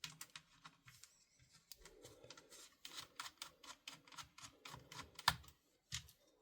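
Faint, irregular small clicks and taps of hands and a tool working on the parts of an airsoft rifle during disassembly, with one sharper click about five seconds in.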